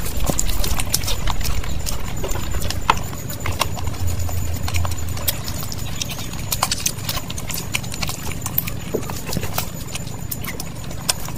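Close-miked eating: wet chewing and mouth clicks, with a hand squishing curry-soaked fried rice and handling chicken and egg. Sharp irregular clicks come several times a second over a low steady rumble.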